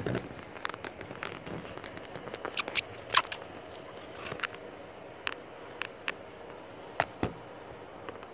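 Irregular light clicks and taps, about fifteen over several seconds and the loudest about three seconds in: hand-handling noise while the shark fin antenna cover is fitted.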